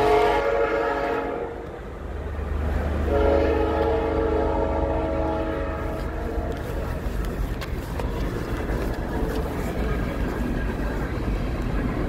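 A horn sounding two long, sustained blasts over a steady low rumble: the first dies away about a second in, and the second starts near three seconds and fades out by about six.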